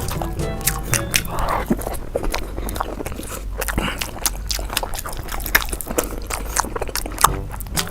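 Close-miked eating: biting and chewing, with a dense run of sharp, irregular wet mouth clicks.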